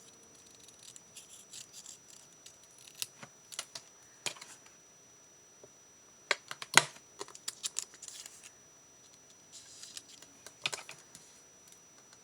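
Scissors snipping paper in short, irregular cuts with small clicks of the blades, busiest in the middle and again near the end.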